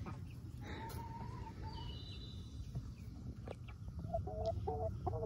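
Domestic hen calling softly while being petted: one drawn-out note about a second in, then a run of short, repeated clucks starting about four seconds in.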